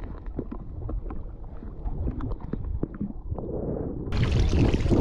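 Muffled underwater sound from a camera held under shallow water, with scattered small knocks and clicks as it moves. About four seconds in it breaks the surface, and a louder, brighter rush of splashing water and wind noise takes over.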